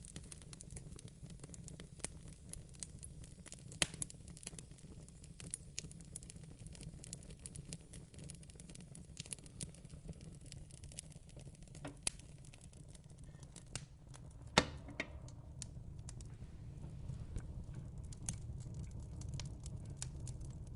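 Wood fire crackling in a fireplace: irregular sharp pops and snaps over a low steady rumble, with two louder pops about four seconds in and again about fifteen seconds in.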